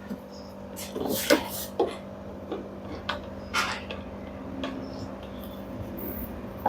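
A screwdriver taking screws out of a semi-automatic washing machine's tub: irregular clicks and scrapes of the tool and metal parts, over a steady low hum.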